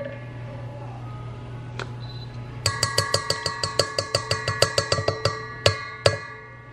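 A spoon beating batter in a stainless steel mixing bowl: quick clinks against the side, about five a second, starting some two and a half seconds in, each setting the bowl ringing, then two harder knocks near the end.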